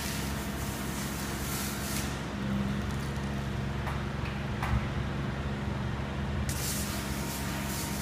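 Pressure washer spraying high-pressure water at the tops of the columns, a hissing spray over the machine's steady low hum. The spray hiss drops out for a few seconds partway through and comes back near the end, while the hum carries on.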